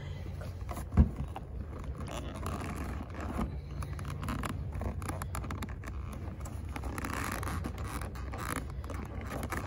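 Hands and a leather stirrup leather rubbing and scraping against the sheepskin fleece lining of a western saddle as the strap is fed up through the slot in the tree, with a single dull thump about a second in.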